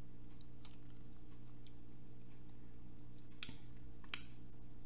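A few faint, short wet mouth clicks from eating a barbecue chicken wing and licking the fingers, over a steady low hum.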